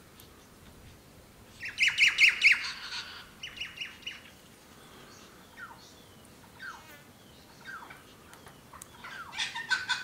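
Rainbow lorikeets screeching in harsh, rapid bursts: a loud run of screeches about two seconds in, shorter bursts after it, a few single falling calls, and another burst near the end.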